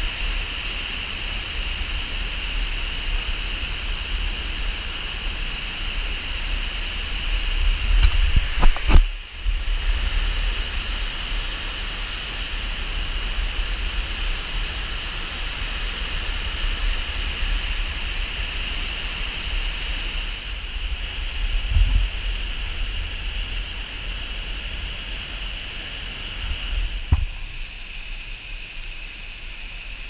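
Steady rushing of Sekumpul Waterfall and the river rapids below it, a loud even hiss with a low rumble. A few thumps break through, the loudest about nine seconds in, and the rush turns somewhat quieter near the end.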